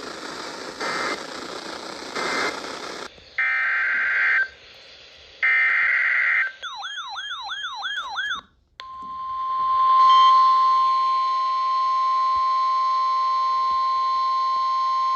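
Weather-radio alert sequence: radio static with short data bursts, then two one-second data bursts of the kind used for a SAME alert header, a brief fast warbling tone, and about two seconds in from a short dropout, the steady 1050 Hz NOAA Weather Radio warning alarm tone fading in and holding.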